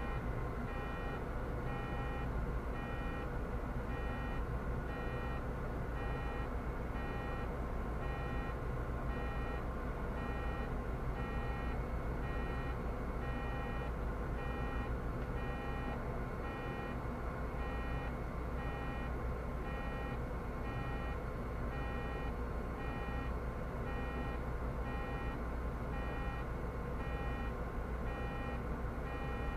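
Short electronic beeps repeating evenly, a little more than once a second, over the steady low rumble of a Solaris Urbino 18 articulated city bus.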